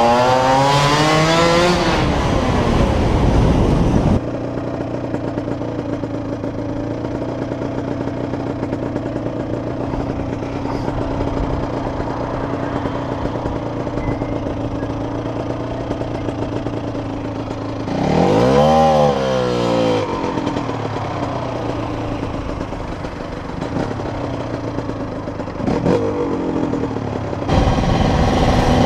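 Cagiva Mito Evo 125's two-stroke single-cylinder engine. Its revs rise and then fall in the first few seconds, and it idles steadily for about fourteen seconds. A sharp throttle blip comes about eighteen seconds in and a shorter one near twenty-six seconds, then the revs climb again near the end.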